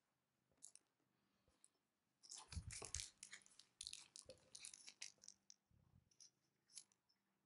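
Crinkling and crackling of cat-treat packaging, a plastic treat packet and its cardboard box, handled for about three seconds in the middle, with a few scattered clicks before and after.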